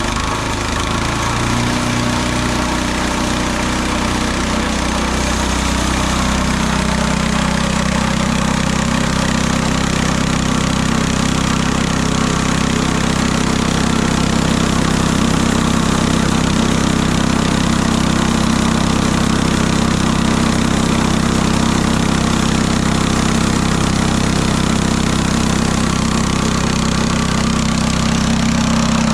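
Small gasoline engine of a Mechmaxx SM-22 sawmill running. Its pitch rises over the first few seconds, then it holds a steady speed.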